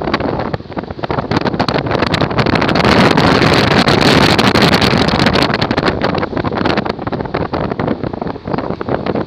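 Wind buffeting the microphone over the running noise of a moving vehicle, a loud rushing with crackling pops that swells a few seconds in and eases again.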